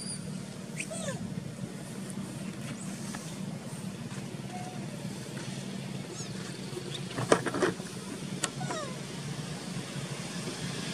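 Young macaque giving short, falling squeals and cries now and then, the loudest a little past the middle, over a steady low hum.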